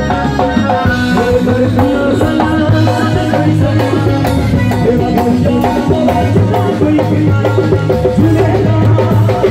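Live band playing a dhamal, a Sufi devotional song, loudly: a driving drum beat and steady bass with electric guitars under a male singer.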